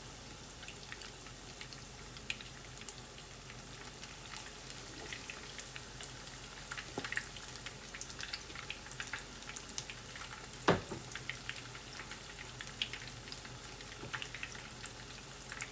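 Battered chicken pieces deep-frying in hot oil: a steady sizzle with scattered small pops and crackles, and one sharper click about eleven seconds in.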